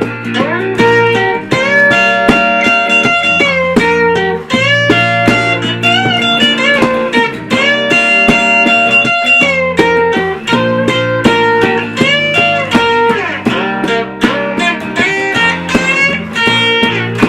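A live band playing an instrumental passage: a guitar lead line with bent notes over bass and chords.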